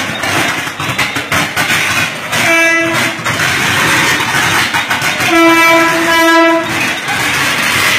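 Mumbai suburban EMU local train's horn sounding three short blasts as it pulls into the platform: one about two and a half seconds in, then two close together around six seconds in. A steady loud hiss runs underneath.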